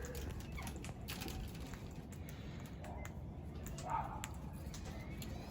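Faint background rumble with scattered light ticks and clicks, and a couple of brief faint sounds a few seconds in.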